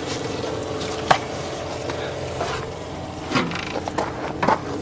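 Handling rustle and a few knocks as the camera is carried and set down, over a steady hum.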